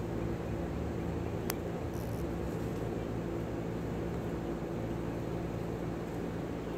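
Steady low mechanical hum with several fixed tones over a rumble, and a single sharp click about a second and a half in.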